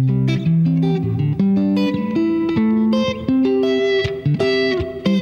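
Electric guitar playing a run of single notes picked one at a time, about a dozen in all, each ringing into the next. These are open-voiced spread triads broken up and picked in varied orders, so the line sounds melodic without running up a scale.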